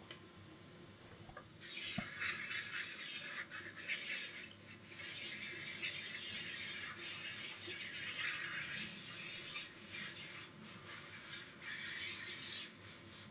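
Handheld hot-air gun blowing on the end of a laptop charger cable: a steady hiss of air that starts about a second and a half in, with a single click just after it.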